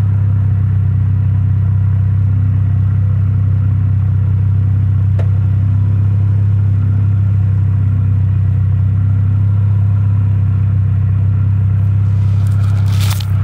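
Exhaust of a 1999 Dodge Stratus with its factory catalytic converter and a Cherry Bomb muffler, the engine running steadily with a deep, even hum and no revving. A rustle of handling noise comes in near the end.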